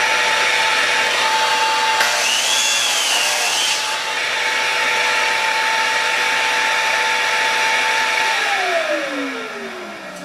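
Delta 36-040 8-1/4-inch miter saw running at full speed with a steady whine, its blade cutting through a piece of wood for about two seconds starting about two seconds in. About eight seconds in the trigger is released and the motor winds down with a falling whine.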